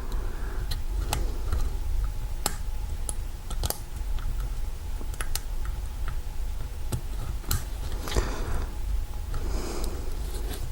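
Irregular small metallic clicks and scrapes of a lock pick and tension wrench working the pin stack of an old, corroded Kwikset doorknob lock that is not yet giving way.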